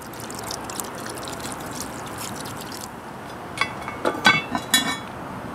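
Beer poured from a bottle into a cast iron Dutch oven full of stew, a steady splashing pour. About three and a half seconds in come several sharp metallic clanks as the Lodge 12-inch cast iron lid is set on the pot with a lid lifter.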